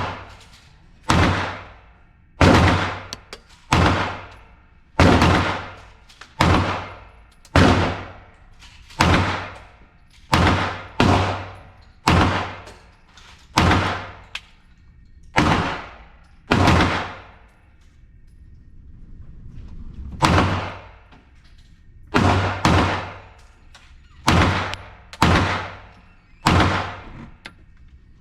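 Glock 45 9mm pistol fired at a slow, steady pace, about nineteen shots one to two seconds apart, with a longer pause midway. Each shot has a short ringing tail.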